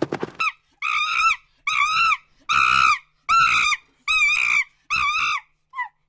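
A monkey giving a run of six high-pitched, wavering calls, each about half a second long and under a second apart, with a shorter one near the end. A horse's hooves clip-clop faintly at the very start.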